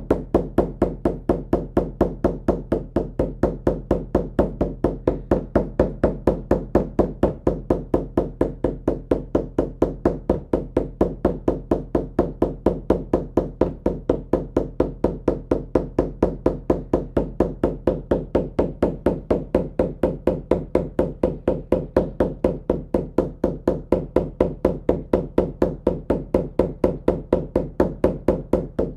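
Shamanic drum beaten in a steady, fast, even rhythm, one unbroken beat for a drum journey.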